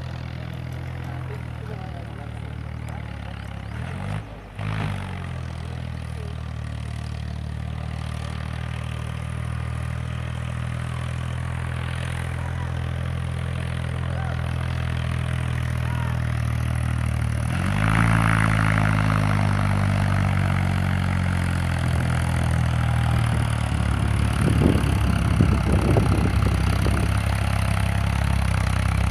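Eicher diesel tractor engine working hard as it hauls two heavily loaded sugarcane trailers, a steady low drone. About two-thirds of the way through the engine note rises and gets louder, and some rattling follows near the end.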